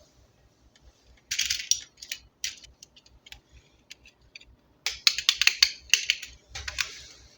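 Hard plastic clicking and crackling from toy pieces and packaging being handled. There is a short burst a little over a second in, scattered single clicks after it, and a longer, denser run from about five to seven seconds.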